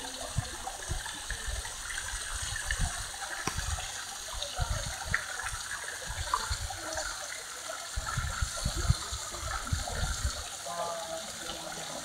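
Steady rush of running water, with frequent short low thumps that are densest about eight seconds in.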